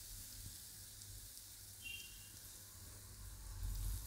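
Faint sizzle of hot frying oil in a wok, with a low hum underneath.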